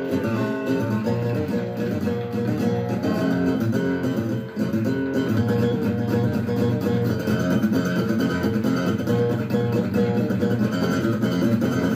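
Acoustic guitar being strummed, playing steady music.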